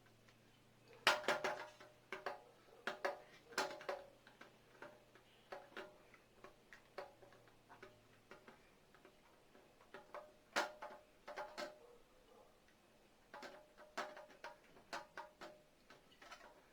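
Irregular small clicks and taps of hard plastic toy pieces being handled on a tabletop, with a few louder knocks about a second in and again around the middle.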